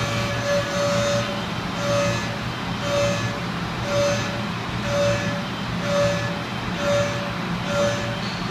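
CNC milling machine high-speed cutting 15-5 stainless steel: a steady machine hum with a clear cutting tone that swells and fades about once a second.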